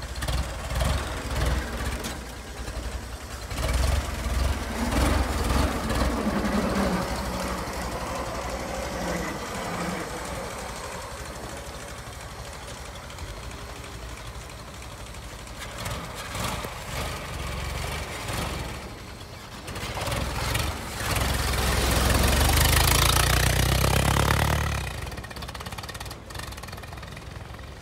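1926 Ford Model T pickup's four-cylinder engine, fitted with a high-compression head, running as the truck pulls away and drives off. It grows loudest for a few seconds near the end as it passes close, then fades as it goes away.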